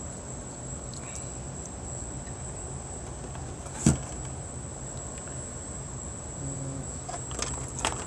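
Steady low electrical hum with a thin high whine, and one sharp click about four seconds in as a power-supply connector is pushed home on a computer motherboard, then a few small clicks of cable handling near the end.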